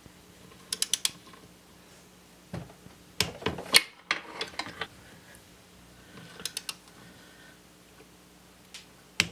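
Socket ratchet clicking in short runs of quick clicks, a few seconds apart, as the connecting-rod cap bolts are tightened down to their torque of 185 inch-pounds.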